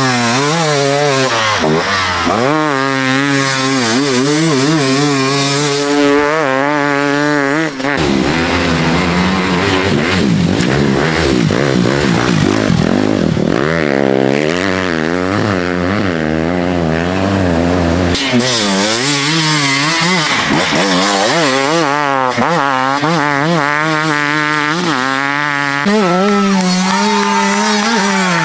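Enduro dirt bike engines revving hard as riders power through sand. The pitch climbs and drops again and again with throttle and gear changes, in several short clips one after another.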